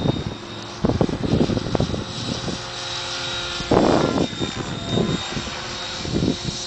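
Compass Atom 6HV electric RC helicopter in flight overhead: a steady high whine from its motor and drive with the rush of the rotor. Irregular rushing bursts come and go over it, the loudest about four seconds in.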